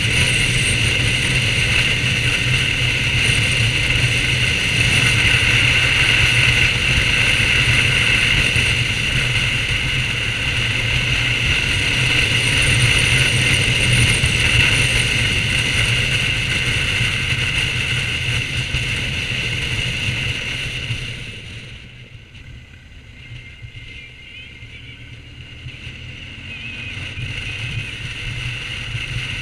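BMW R1200GS boxer-twin motorcycle riding at road speed, its engine running under a loud, steady rush of wind over the camera. About two-thirds of the way through the sound drops sharply to a much quieter, low engine note, then builds again as the bike picks up speed near the end.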